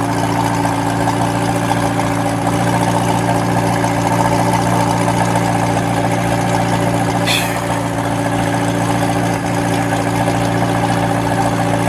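A vehicle engine idling steadily, picked up by a police body camera, with a brief high hiss about seven seconds in.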